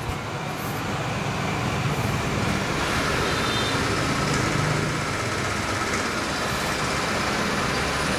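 Two robot vacuum-mops, an Ecovacs Deebot T9 and a Roborock S7, running together in vibrating-mop mode, giving a steady whir with a low hum that builds up over the first second. The T9 is the noisier of the two when mopping.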